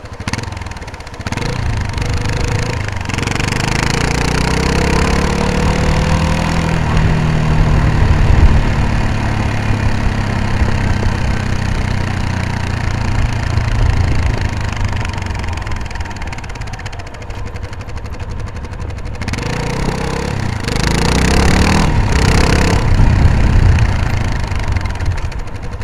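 Motorcycle engine pulling along under throttle. Its pitch climbs, with short dips as the rider shifts gear, eases off for a few seconds past the middle and picks up again near the end, over a steady rush of wind and road noise.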